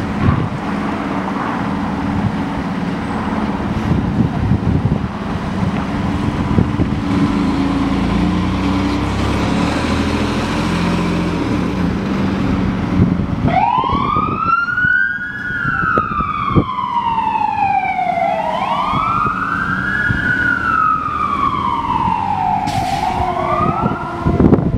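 Fire engine's diesel engine running as the truck pulls out and drives off, then its siren starts about halfway through with a slow wail: a quick rise and a longer fall, twice over, with a third rise beginning near the end.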